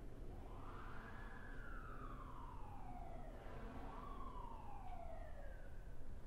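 Emergency vehicle siren wailing, twice sweeping slowly up in pitch and then down, over a steady low rumble.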